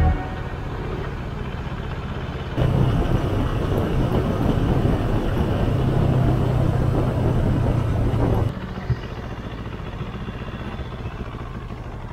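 Motorcycle engine running under way with road and wind noise, heard from the rider's handlebar camera. The sound changes abruptly twice: it gets louder about two and a half seconds in, with a steady engine tone, and drops back about three seconds before the end, with a single click just after.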